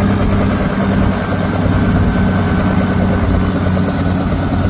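Helicopter running close by: a loud, steady rotor and engine drone that does not change.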